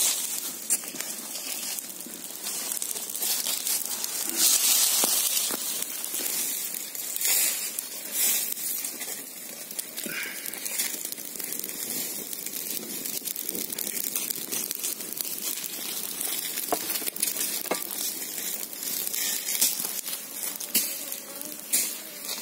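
Dry grass and leaves burning, crackling irregularly over a steady hiss.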